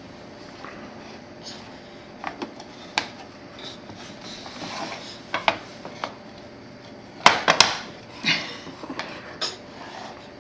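Scattered clicks and knocks of small hard objects being handled, with a cluster of louder sharp clatters about seven seconds in.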